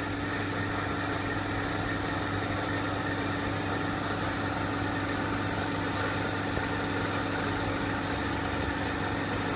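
Aquarium air pump humming steadily as it feeds an air stone bubbling in the tank.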